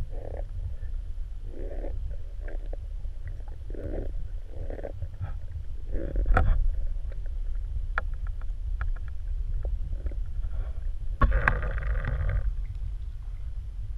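Muffled water sloshing and splashing from swimming strokes over a steady low rumble. A few sharp knocks are heard, and the splashing grows louder for a moment near the end.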